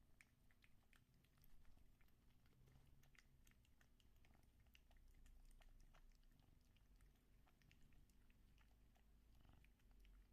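Faint, irregular little clicks and smacks of a cat chewing and licking a treat, with a low purr underneath at times.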